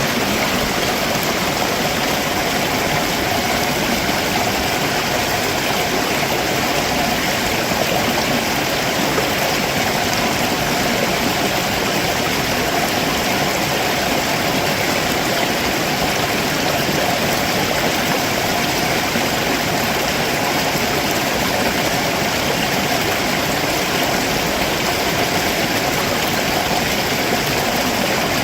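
Stream water running over rocks below a waterfall, a steady rushing that does not change.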